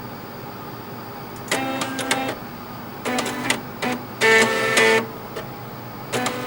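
Floppy disk drive stepper motors buzzing out a tune as a run of short pitched notes, starting about one and a half seconds in, with a louder held stretch around the middle. A steady hiss runs under it.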